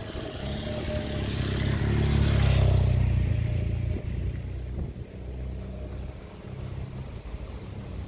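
Motorcycle passing close by: its engine grows louder, peaks about two and a half seconds in, then fades away as it moves off.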